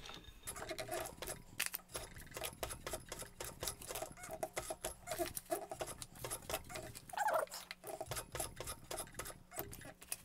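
Juki 1541 industrial walking-foot sewing machine turned slowly by its handwheel to force stitches over a thick, bulky seam: a dense, irregular run of mechanism clicks and ticks with short squeaks, one more drawn out about seven seconds in, over a faint steady hum.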